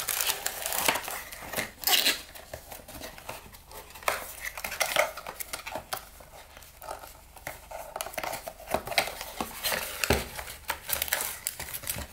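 Cardboard and paper cards rustling and crinkling as they are handled and packed into a small cardboard kit box, with scattered light taps and clicks. There is a dull thump about ten seconds in as the box is set down on the table.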